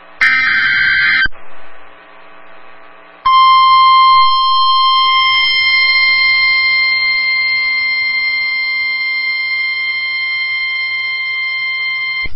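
NOAA Weather Radio broadcast: a SAME digital header burst, a screechy data chirp about a second long, ends near the start; after a short gap the 1050 Hz weather radio alert tone comes on and holds steady for about nine seconds, announcing the next warning.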